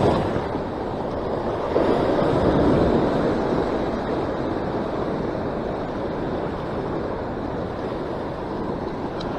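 Ocean surf washing and breaking over shoreline rocks, a steady rushing with a swell that grows louder about two seconds in, mixed with wind buffeting the microphone.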